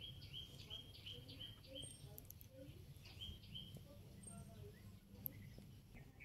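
A small bird repeating a short high chirp about three times a second, stopping about two seconds in, then giving a brief second run just after three seconds. A faint low outdoor rumble runs underneath.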